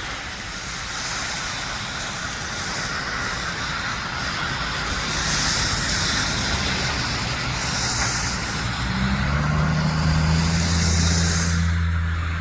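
Road traffic: tyre hiss that swells as vehicles pass, with a vehicle engine's low hum growing louder over the last few seconds.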